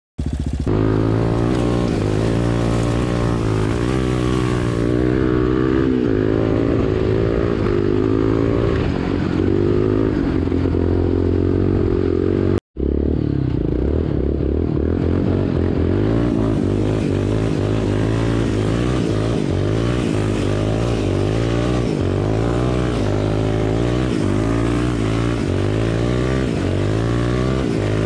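Quad bike (ATV) engine running under load, its pitch rising and falling with the throttle. The sound cuts out for a moment about halfway through.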